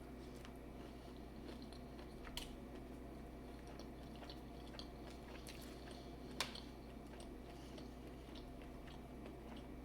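Faint chewing of food, with two small clicks about two and a half and six and a half seconds in, over a low steady hum.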